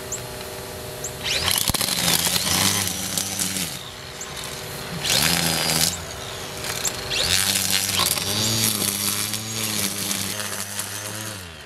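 Two battery-powered string trimmers running in bursts, their electric motors whining up to speed and winding down three times, with a hiss as the spinning line cuts through grass and dry leaves.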